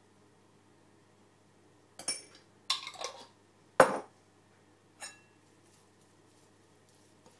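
Kitchen utensils and crockery: a metal spoon clinking and scraping against a glass jar and a ceramic bowl, with a cluster of clinks about two seconds in, a hard knock just before four seconds, and one lighter clink about a second later.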